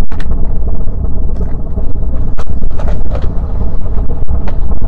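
Strong wind buffeting the microphone: a loud, steady low rumble with scattered sharp pops.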